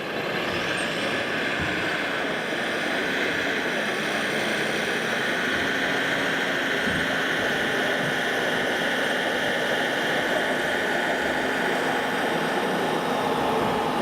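Radio-controlled scale construction machines running steadily, a constant mechanical whine over a dense background noise.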